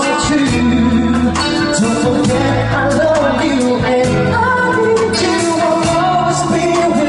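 A band playing a song with a lead singer, the sung melody over held bass notes and a steady drum beat.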